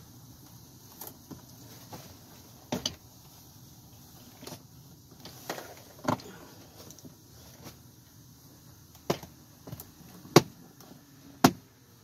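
Plastic retaining clips of a BMW 5 Series F10 door trim panel snapping into the door as the panel is pressed home by hand, heard as a series of sharp clicks and knocks, the loudest two near the end.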